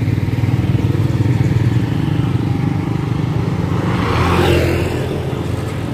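A steady low engine rumble of road traffic, with a motor scooter passing close by about four seconds in, rising and fading within a second or so.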